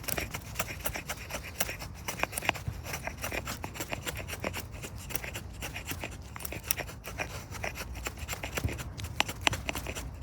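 Gränsfors Bruk Small Forest Axe's very sharp blade shaving thin curls off a stick to make a feather stick: a run of quick, crisp scraping cuts, several a second.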